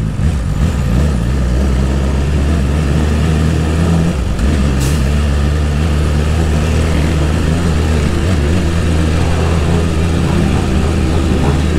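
BMW S1000RR's inline-four running at steady revs while cruising, its exhaust without the end silencer, with wind noise over it.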